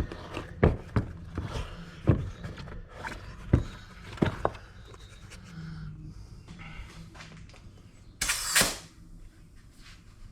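Hands working a scooter tire and its inner tube by hand: irregular knocks and clicks of rubber and metal parts being handled, thickest in the first half, then a short, loud rushing noise a little over eight seconds in.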